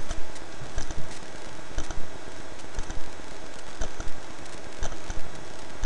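A steady hiss with short, sharp clicks recurring about every half second to second.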